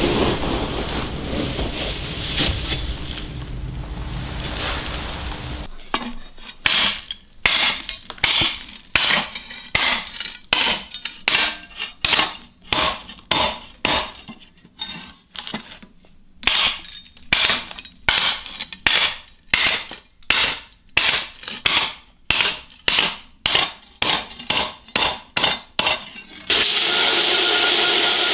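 A steady rushing noise, then about twenty seconds of hammer blows on a steel knife blade resting on a wooden stump, about two blows a second with a short pause midway. Near the end a belt grinder starts grinding the blade steadily.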